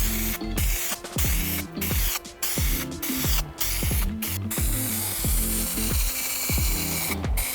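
Hiss of a paint spray gun, coming in short bursts with brief breaks and then running unbroken from about halfway, over background music with a steady kick-drum beat.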